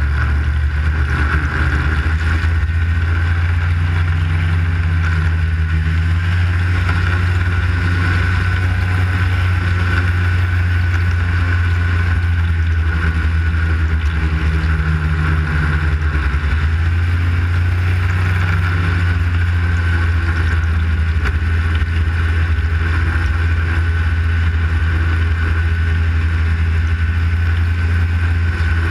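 Arctic Cat snowmobile running at a steady cruising speed, heard from on board: a loud, steady low engine drone with a constant higher whine over it.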